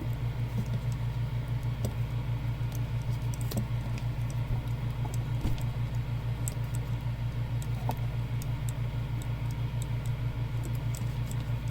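Faint scattered clicks and taps of small plastic gunpla parts being handled and snapped onto a model kit, over a steady low pulsing hum.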